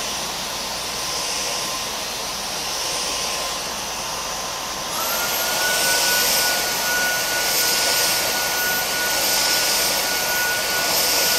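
Dyson Omni-Glide cordless stick vacuum running on normal power with a steady whine. About five seconds in it is switched to max power: the motor's whine jumps higher in pitch and gets louder, then holds steady.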